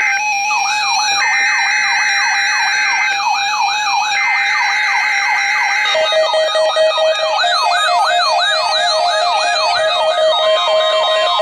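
Electronic yelp siren sweeping up in pitch about twice a second, layered with steady electronic alarm tones. A pair of higher tones switches on and off in the first half; about halfway through it gives way to a lower steady tone, and another tone joins near the end.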